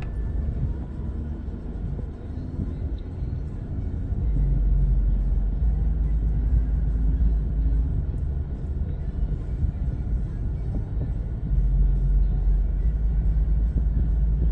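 Road and engine noise of a moving car heard from inside the cabin: a steady low rumble that grows louder about four seconds in and again near the end.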